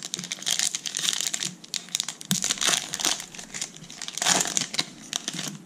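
Foil wrapper of a Panini Prizm Draft Picks trading-card pack crinkling and tearing as it is ripped open by hand, in several bursts, loudest a little past halfway and again about four seconds in.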